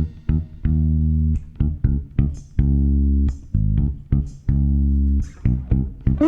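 Live band music: a bass guitar playing a low plucked riff of short and held notes, with light guitar plucks and no drums.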